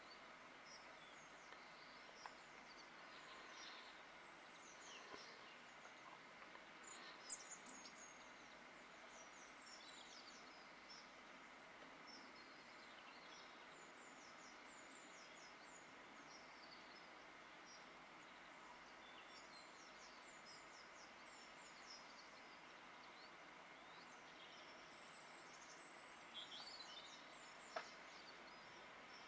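Small garden birds calling and twittering faintly: many short, high chirps that slide downward in pitch, with a few louder calls about seven seconds in and again near the end, over steady faint background noise.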